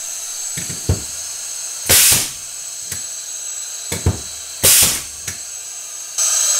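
DeWalt D51845 pneumatic framing nailer hissing steadily as air leaks out of it, with sharp clicks and three loud bursts of air as it is fired into a wooden block. The owner is pretty sure the leak is a blown O-ring.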